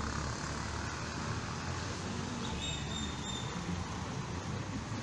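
Steady outdoor traffic rumble from a nearby street, with a brief faint high-pitched tone about two and a half seconds in.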